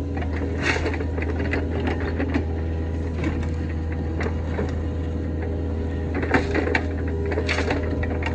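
Kobelco SK55 mini excavator's diesel engine running steadily under work, with scattered scrapes and sharp knocks from the bucket grading dirt and gravel.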